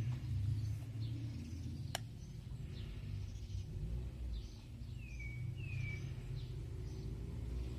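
Outdoor ambience: a steady low rumble with birds chirping on and off, and a single sharp click about two seconds in.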